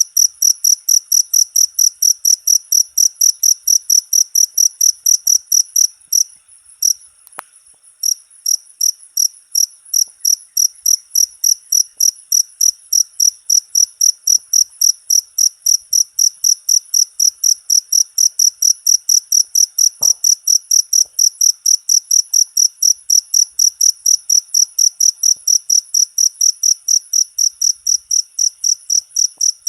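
A cricket chirping in a fast, even rhythm of shrill high-pitched pulses, several a second, with a short break about six seconds in.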